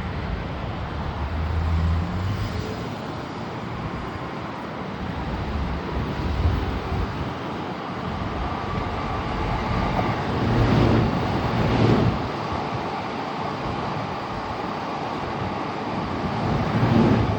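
Electric commuter train running past on the rails with a steady rumble, over outdoor traffic noise. It grows louder with a few heavy low thumps about two-thirds of the way through and again near the end.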